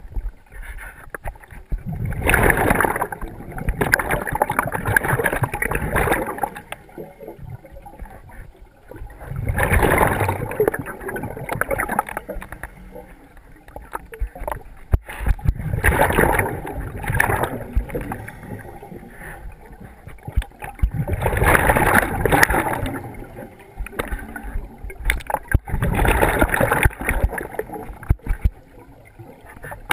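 Scuba diver breathing through a regulator underwater, recorded close up: five breaths about five to six seconds apart, each a loud burst of exhaled bubbles gurgling past the helmet, with quieter spells between.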